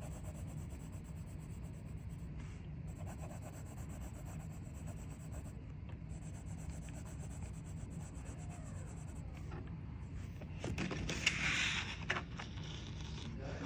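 A colouring tool rubbing and scratching on paper as a drawing is coloured in, loudest for about a second and a half near the end, over a steady low hum.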